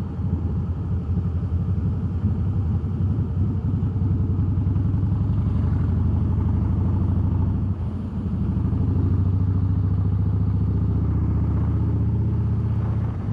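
Harley-Davidson Softail Deluxe's air-cooled V-twin engine and exhaust running steadily while riding at low speed, heard from the handlebars; the engine note dips briefly about eight seconds in, then picks up again.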